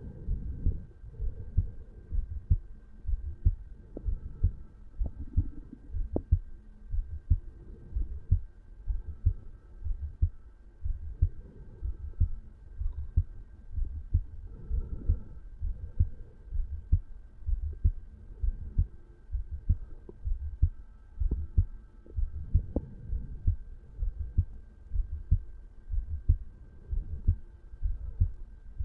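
Human heartbeat heard over the mitral valve area of the chest: low thumps repeating in a steady, even rhythm, the heart of a man at rest.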